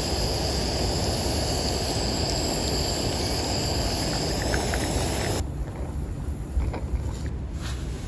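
Camping gas stove burner hissing steadily under a two-spout stovetop espresso maker as the coffee comes up. The hiss stops abruptly about five seconds in.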